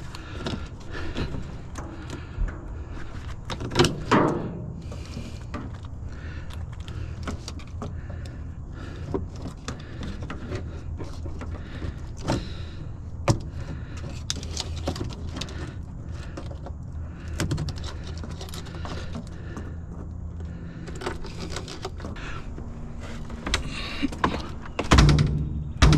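Hand snips cutting a small length of wire off scrap metal: scattered sharp clicks, snaps and metal clatter over a low steady hum that fades out before the end. A louder burst of knocks comes near the end.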